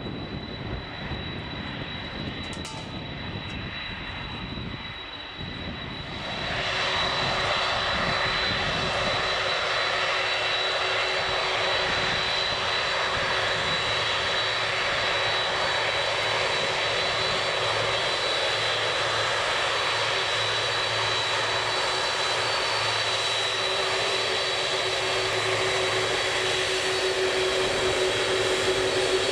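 Boeing 747-400F jet engines running as the four-engined freighter moves on the ground, with a steady high whine. About six seconds in, the engine noise jumps suddenly louder and fuller, then holds steady.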